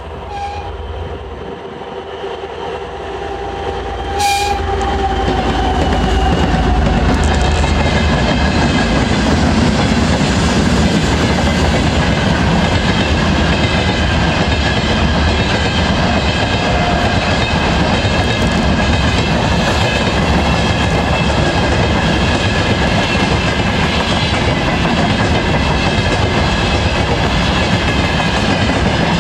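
2M62U twin-section diesel locomotive, with its two-stroke diesel engines, approaching and passing close about four seconds in, its engine note dropping as it goes by. After that a long freight train of hopper and tank wagons rolls past with steady wheel-on-rail clatter and ringing.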